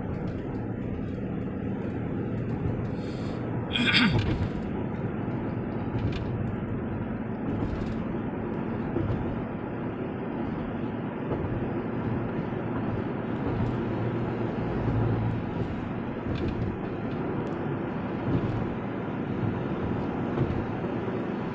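Steady road noise inside a moving car's cabin: tyres and engine at motorway speed, with one brief louder sound about four seconds in.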